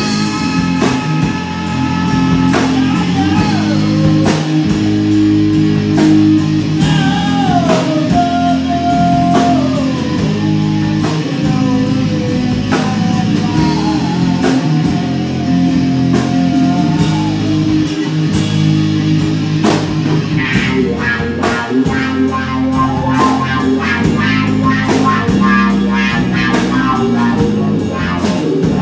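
Live rock band playing: electric guitar, bass guitar and drum kit, with a melody line that slides up and down in pitch over a steady drum beat.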